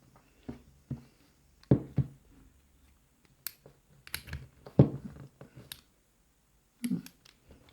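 Scattered sharp metallic clicks and knocks from a partly gutted laminated padlock being handled and worked on, the loudest about two and five seconds in.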